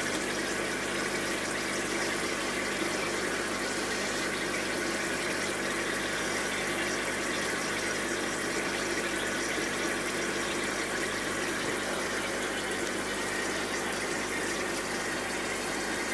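Air-driven sponge filters bubbling steadily in aquarium tanks, with a faint low hum beneath.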